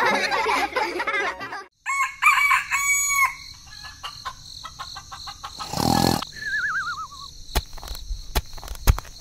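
A rooster crowing, then a short falling warbling whistle and a run of sharp clicks near the end.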